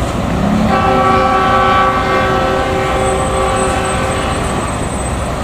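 Diesel locomotive horn sounding one long chord of several notes, starting about a second in and lasting some four seconds, as the express train runs through the station without stopping. A steady rumble from the approaching train lies under it.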